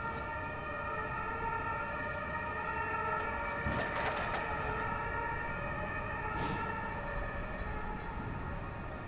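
Synchrotrain prototype rail vehicle running along the track: a steady high-pitched whine made of several held tones, with a few clicks about four seconds in and again around six and a half seconds.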